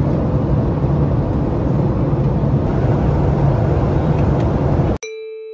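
Steady rumble of a jet airliner's cabin in flight: engine and airflow noise. Near the end it cuts off suddenly and a sustained chime tone begins.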